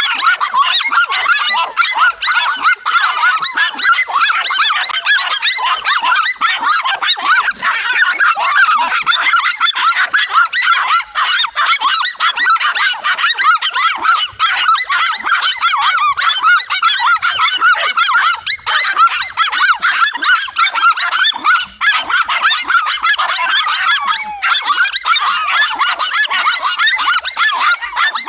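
A pack of dogs barking and yapping nonstop, many short high-pitched barks overlapping into a continuous din, as they hold a cornered lizard at bay.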